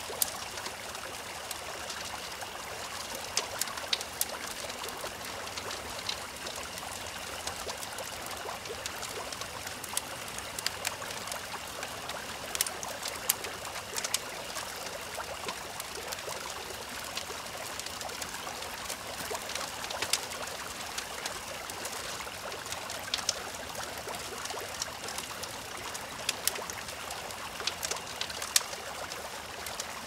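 Babbling brook trickling steadily, layered with the sharp, irregular pops and crackles of a wood fire and a faint steady chirring of crickets.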